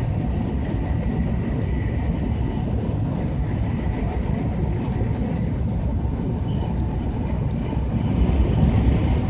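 Running noise inside the passenger cabin of an E2-series Shinkansen travelling between stations: a dense, steady rumble of wheels on rail, heaviest in the low range, growing slightly louder near the end.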